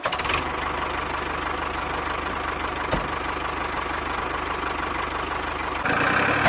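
Small DC electric motor of a homemade mini tractor running steadily as it drives, a fast even whir with a fine rattle underneath. About six seconds in the sound gets louder and brighter.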